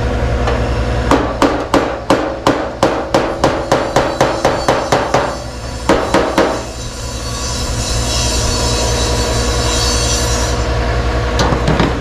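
Hammer blows on sheet-metal bodywork at about three to four a second, then a pause and a couple more blows. After that comes a steady high hiss for a few seconds, over a steady low hum.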